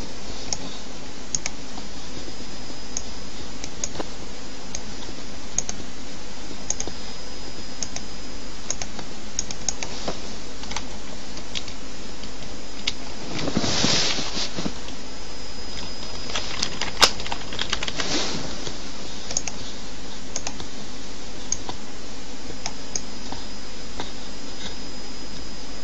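Computer keyboard typing: scattered single keystrokes, roughly one a second, over a steady hiss. There is a brief rustling swell about halfway through.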